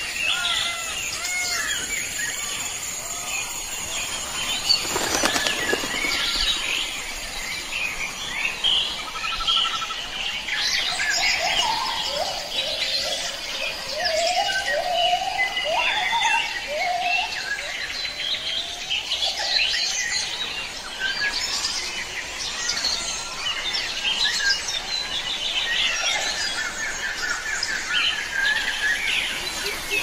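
Mixed birdsong from several birds, with many overlapping chirps and whistles and a run of lower, sliding whistled notes around the middle.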